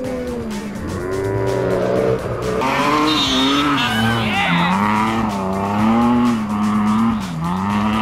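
BMW E30 rally car's engine revving hard, its pitch rising and falling over and over as the car slides through loose sand corners.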